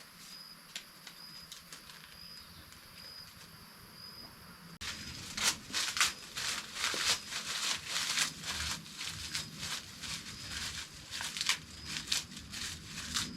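A short high chirp, likely an insect, repeats about once a second against a quiet outdoor background. About five seconds in, loud irregular crackling and rustling of dry banana leaves being handled begins and continues.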